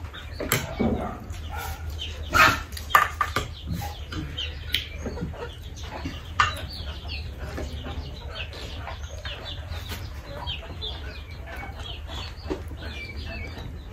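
Chickens clucking in the background, with a few sharp clinks of a spoon against dishes.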